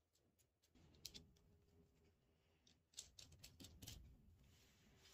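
Faint clicks and light taps of steel nuts and bolts knocking together as they are fitted into the keys of a nut and bolt thread checker. A few clicks come about a second in, then a quicker run of clicks around three to four seconds in.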